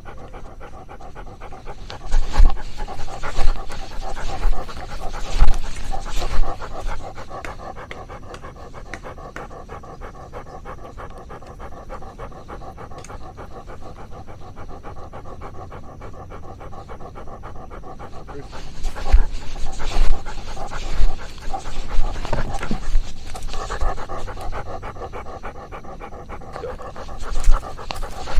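A dog panting rapidly and steadily, close to the microphone. Louder bumps, knocks and rustling come in a few seconds in, again about two-thirds of the way through, and briefly near the end.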